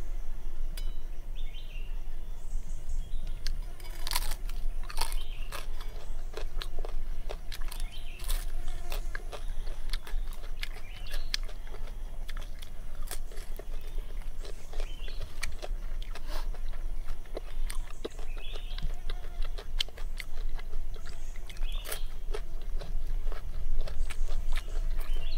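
Close-up crunching and chewing of crisp grilled pig-head skin, with irregular sharp crunches every second or so.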